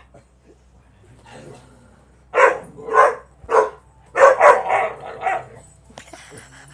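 A dog barking: three short barks about half a second apart, then a longer, rougher run of barking.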